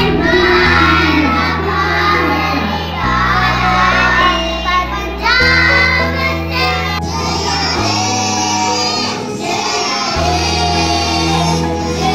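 A song: a voice sings a wavering, ornamented melody over sustained low accompaniment chords that change about every two and a half seconds.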